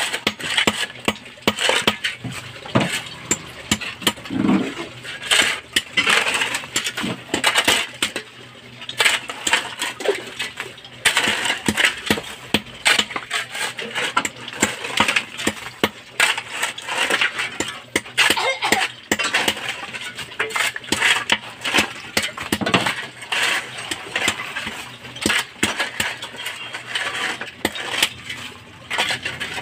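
A hand-held metal tool chipping and scraping at the cement bedding around the base of a ceramic toilet bowl to break it loose for removal. It makes rapid, irregular metallic clinks and gritty scrapes, many each second.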